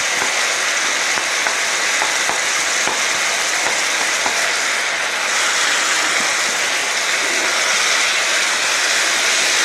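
Beef chunks, sliced red and green peppers and carrots sizzling steadily in oil in a wide pan, with light taps and scrapes of wooden spatulas stirring them.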